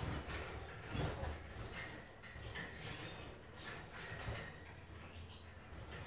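Small caged finches giving a few short, high chirps and brief whistled notes. Low rumbling runs underneath, with knocks near the start and about a second in from handling or the cage.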